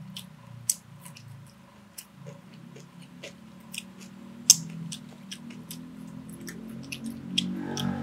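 Close-up eating sounds: a person chewing, with irregular sharp smacks and clicks several times a second.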